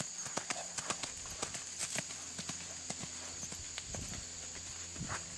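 Welsh pony's hoofbeats on a sand arena as it canters loose: a quick, uneven run of dull thuds that thins out to a few scattered beats after about two and a half seconds.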